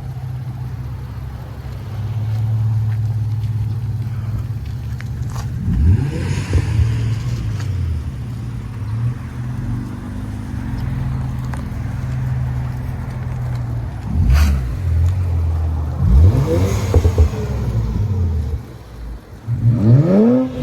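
Infiniti Q50 3.0t's twin-turbo V6 running through a new axle-back exhaust and lower downpipes. It holds a steady low note, broken by short revs that rise and fall in pitch about six seconds in, around fourteen and sixteen seconds, and again near the end.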